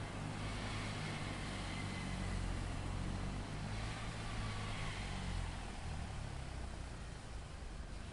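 Large crawler bulldozer's diesel engine running with a steady low drone, which eases a little about five and a half seconds in.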